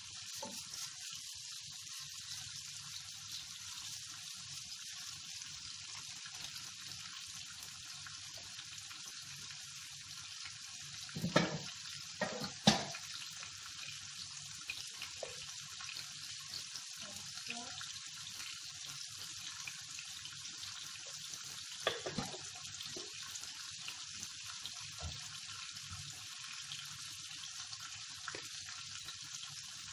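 Onions and green bell pepper sizzling steadily in oil in a nonstick frying pan. A few sharp knocks stand out about halfway through, and one more later on.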